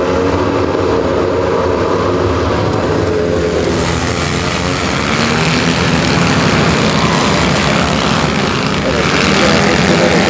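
A pack of autocross buggies racing on a dirt track, many engines revving hard at once. The din grows louder and brighter about four seconds in as the pack comes round the bend close by, and swells again near the end.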